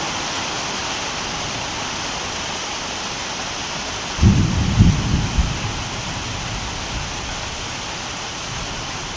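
Heavy rain falling steadily, with a low rumble of thunder about four seconds in that lasts a second or two.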